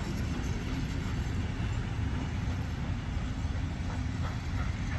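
Heritage passenger train carriages rolling away along the track, a steady low rumble from the wheels on the rails.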